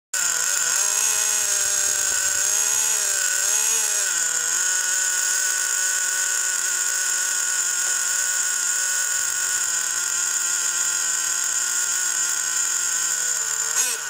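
Small two-stroke nitro glow engine of a Traxxas T-Maxx RC truck idling, with a few light throttle blips in the first four seconds, then a steady idle. Just before the end it revs up sharply.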